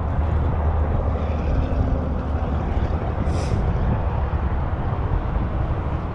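Steady low outdoor rumble, with a brief hiss about three and a half seconds in.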